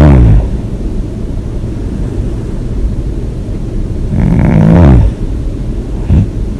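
A woman snoring loudly. The tail of one snore falls in pitch at the start, a full snore follows about four seconds in, and a short snort comes near the end, over a steady low hum.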